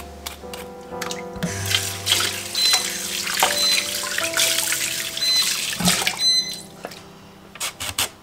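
Tap water running into a kitchen sink as a carrot is rinsed under it by hand, starting about a second and a half in and stopping about a second before the end, over soft background music.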